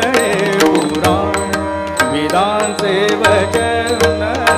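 Male singer performing a Marathi natya sangeet song, with ornamented, wavering vocal runs. Tabla strokes and steady held accompanying notes run underneath.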